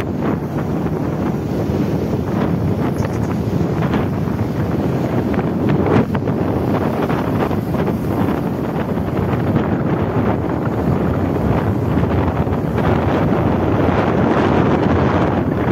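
Steady wind rushing and buffeting over the microphone while riding on a moving motorcycle.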